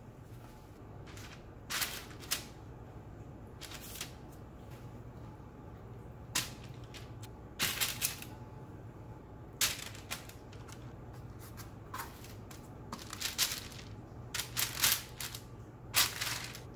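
Raw chicken pieces being set down one after another on a parchment-lined sheet pan: irregular soft slaps and paper crinkles, about a dozen, over a low steady hum.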